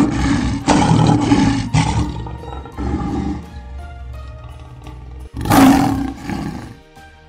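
Lion roaring twice: a roar of about two seconds at the start that trails off, then a second roar about five and a half seconds in, over background music.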